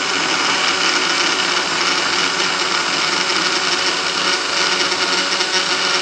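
Electric blade coffee grinder running steadily, grinding dried reindeer lichen into a fine powder.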